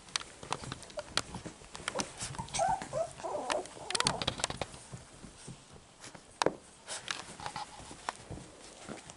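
Six-week-old cockapoo puppies playing, with scattered clicks and scuffles and a few brief whimpers about three seconds in.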